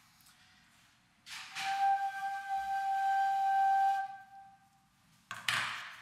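Homemade quena, an end-blown notched flute, sounding one long breathy note held steady for about two and a half seconds, then fading. Near the end comes a short, loud burst of noise.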